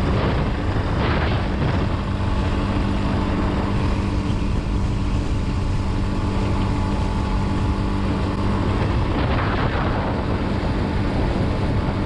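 Suzuki DR-Z400 single-cylinder engine running at a steady highway cruise, heard with heavy wind rush on the rider's microphone. There are two brief swells of louder wind noise.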